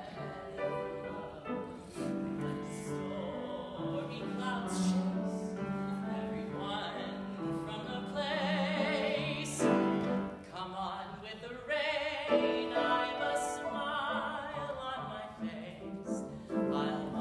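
A man singing a show tune in a trained voice with vibrato, accompanied on grand piano.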